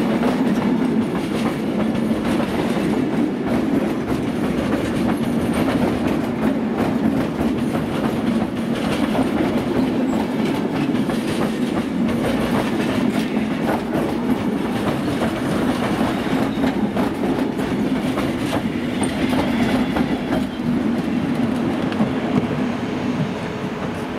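A Belgian SNCB electric multiple unit passing close by, with a steady low running drone and its wheels clicking over the rail joints in a continuous clickety-clack. It eases off slightly near the end as the last coaches go by.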